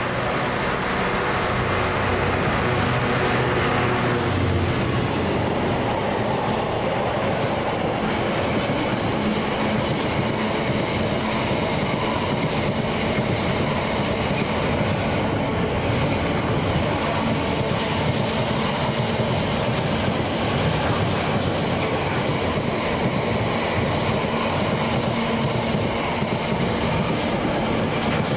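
Train passing close by on the main line. A deep engine note in the first few seconds drops away, then comes a long, steady rumble of wheels on rail.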